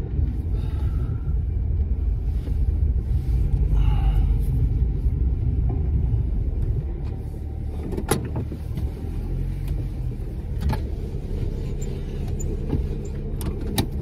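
Car cabin sound while driving: a steady engine and road rumble that eases a little about halfway through, with a few sharp clicks in the second half.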